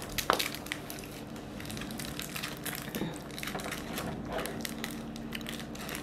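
Plastic candy-bar wrapper crinkling as a chocolate bar is unwrapped by hand: a run of small irregular crackles, busiest just after the start.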